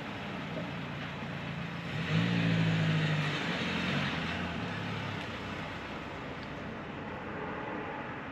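A motor vehicle engine passing by over a steady background hum. Its low drone swells about two seconds in and fades away over the next few seconds.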